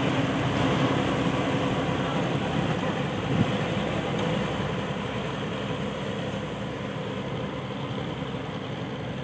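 Engine of an old river passenger ferry running steadily with a low drone as the boat pulls away from the jetty, slowly fading as it moves off. There is one brief knock about three and a half seconds in.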